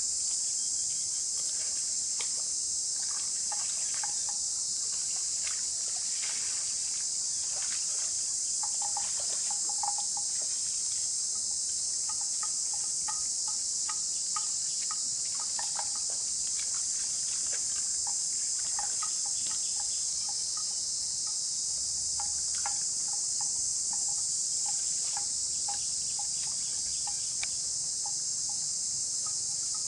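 Steady high-pitched drone of insects, with scattered short clicks and brief repeated notes beneath it.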